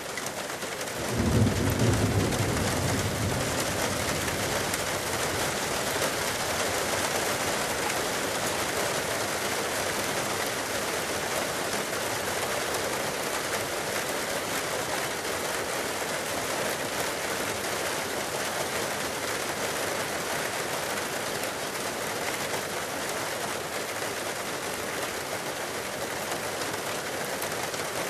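Steady rushing roar of a debris flow, water, mud and rock pouring down a mountain gorge, with a louder low rumble starting about a second in.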